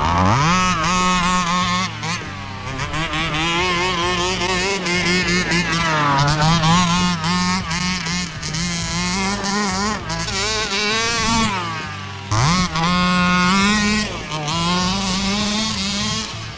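HPI Baja 5B RC buggy's stock two-stroke petrol engine revving hard as the car is driven, the pitch climbing steeply at the start and then holding high with repeated dips and rises as the throttle is worked. Just past two thirds of the way in it drops off briefly, then revs sharply back up.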